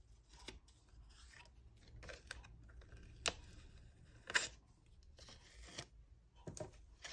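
Washi tape being peeled off die-cut patterned paper, with faint paper rustling and a few short, sharp rips, the sharpest about three and four seconds in.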